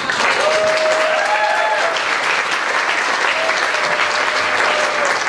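Audience applauding in a steady, dense clatter that starts abruptly, with a few drawn-out voices calling out over the clapping.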